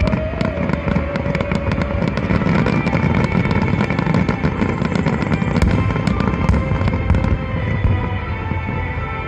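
Fireworks of the Nagaoka "Phoenix" display going off without a break: a continuous low rumble of bursts with dense crackling on top, while music plays along with the show.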